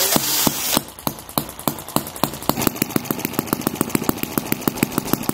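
A cordless drill spins a 1cc model sideshaft engine over for under a second, and the engine catches. It then runs on its own with sharp, regular firing pops that come faster as it picks up speed.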